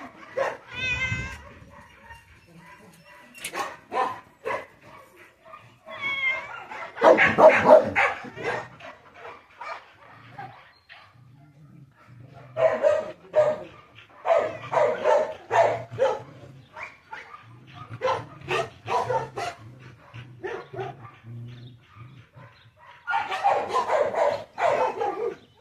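A dog whining and yipping in irregular bursts, with low growling between them.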